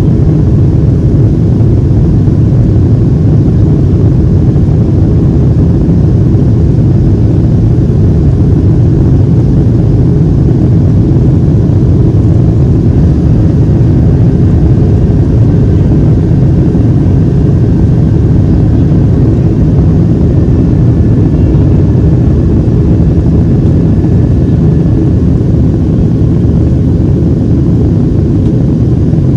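Steady low roar of a Boeing 737-700 in flight, heard inside the passenger cabin: its CFM56-7B turbofan engines and the rush of air over the fuselage, unchanging throughout.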